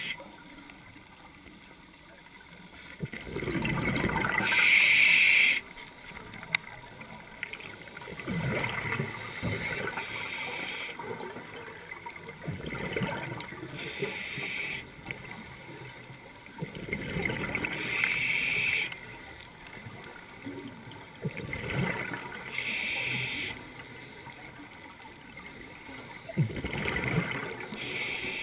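Scuba diver breathing through a regulator underwater: hissing inhalations alternate with bubbling exhalations in a regular cycle, about five breaths, one every four to five seconds.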